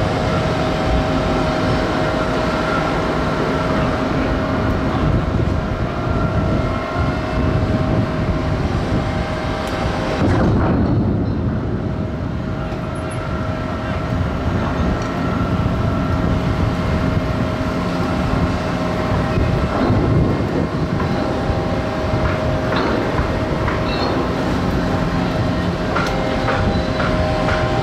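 Heavy dockside machinery running steadily: the ship's deck cranes and diesel forklifts give a low drone with a constant whine on top.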